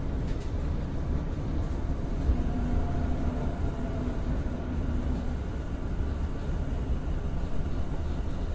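Commuter train pulling out of an underground station, heard from inside the driver's cab: a steady low running rumble, with a faint tone that comes in about two and a half seconds in and fades a few seconds later.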